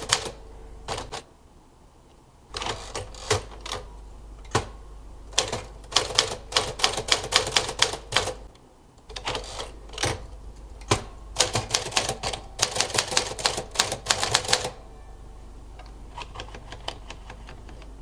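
A 1950s Smith-Corona typewriter being typed on: runs of rapid key strikes broken by two short pauses, then a few sparse, quieter clicks near the end.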